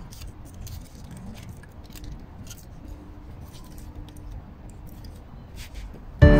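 Aluminium foil sandwich wrappers crinkling as they are handled, scattered small crackles over a low steady rumble. Music starts suddenly right at the end.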